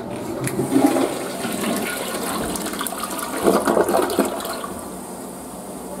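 Western-style toilet flushing: water rushing and swirling into the bowl, surging about a second in and again around three and a half seconds, then easing off near the end.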